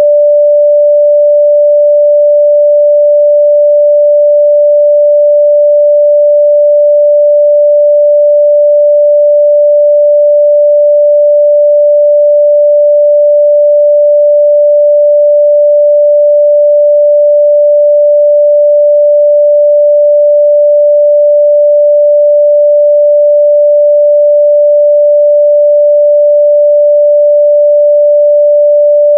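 A steady, loud 588 Hz sine-wave test tone, a single pure pitch that holds constant without change.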